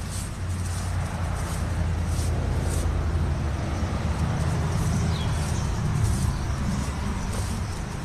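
A motor vehicle's engine running: a steady low hum, a little stronger in the middle and easing near the end.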